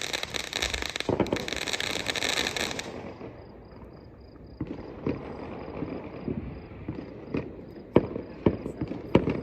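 Consumer firework hissing and crackling for about three seconds, then cutting out, followed by scattered sharp pops and crackles about a second apart. A faint, evenly repeating high chirp runs under the pops.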